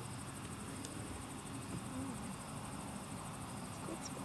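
Crickets trilling steadily in a high, evenly pulsing night chorus, over a low rumble.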